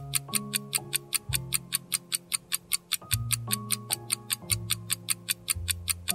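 Quiz countdown timer: clock-like ticking, about four ticks a second, over background music with held low chords that change every second or so.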